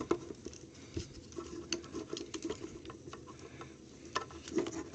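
Irregular clicks, taps and light scraping of hard plastic parts on a Transformers Leader Class Megatron action figure being handled and pried at as pegged parts are worked loose.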